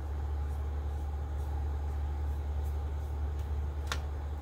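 A steady low machine hum, with a faint steady whine above it and one light click near the end.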